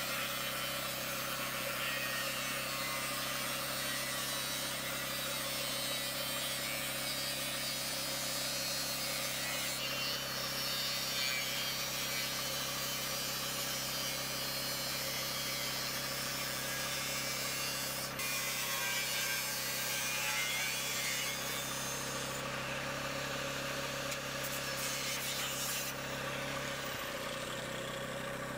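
Angle grinder cutting through the thin steel wall of a 44-gallon drum: a steady whine under a harsh grinding hiss, running on without a break.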